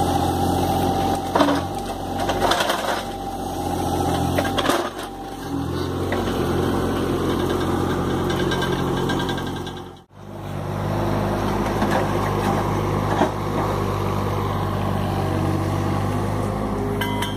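John Deere 17D mini excavator's diesel engine running steadily under hydraulic work, with a few knocks and scrapes from the bucket in the first five seconds. The sound cuts out for an instant about ten seconds in, then the engine runs on steadily.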